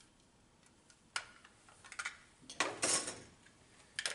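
Steel gangable old-work electrical box and screwdriver clinking as the box's screw is backed out and its side plate taken off: sharp metal clicks about a second in and near the end, with a short clattering rattle in the middle.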